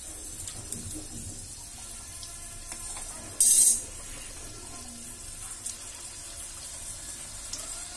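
Potato tikki frying in hot oil in a kadai: a steady sizzle with small pops. About three and a half seconds in there is a short, loud burst of hissing as a patty goes into the oil.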